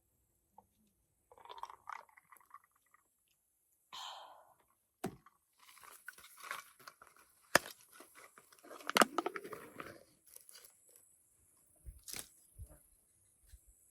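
Close crunching and handling noises with a few sharp clicks.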